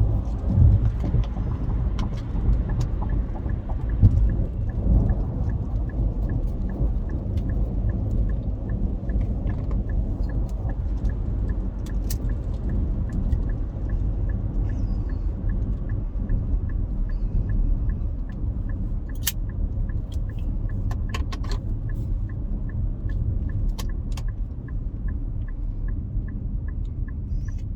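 Car cabin road noise, a steady low rumble while driving, with a turn-signal indicator ticking evenly through most of it. A few sharp clicks come in the second half.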